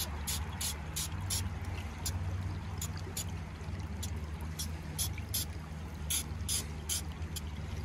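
Shallow stream water trickling, with small, irregular splashes and drips, about two or three a second, as a beaver trap is worked into place in it; a low steady rumble runs underneath.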